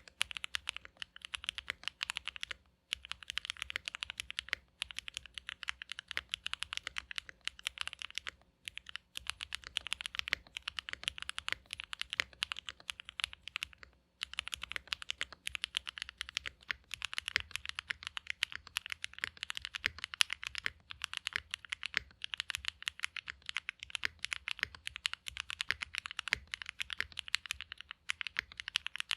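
Typing on a Mode Sonnet custom mechanical keyboard with a POM plate, Gateron Oil King linear switches and GMK keycaps: a steady, fast run of keystrokes with a few brief pauses.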